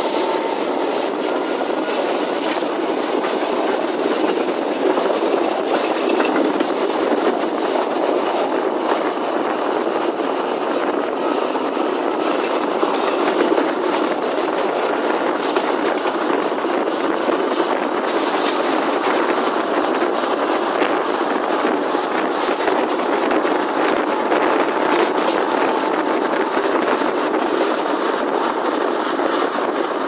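Indian Railways passenger coach running along the track, heard from its open doorway: a steady rush and rumble of wheels on the rails, with a few sharp clicks now and then.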